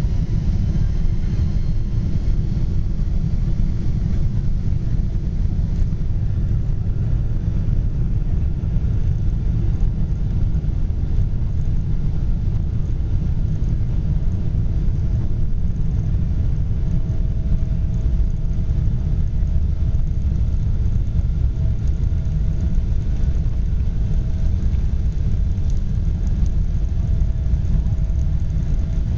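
Steady low rumble of a Boeing 777 airliner, even in level throughout, with a faint steady tone joining about halfway through.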